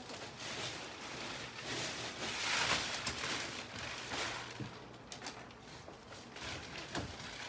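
Clear plastic wrapping rustling and crinkling as it is pulled off a new memory-foam mattress, loudest a few seconds in, with a few light knocks near the end.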